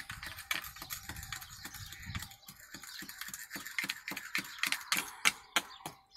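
A hand scrubbing sandy, gritty glazed ceramic tiles with a plastic scrubber: a quick run of short scratchy strokes, about four a second.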